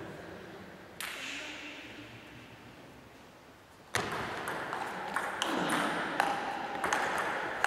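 Table tennis rally: the ball clicking sharply off the bats and the table several times a second, echoing in a large hall. A single click comes about a second in, and the rally starts about four seconds in.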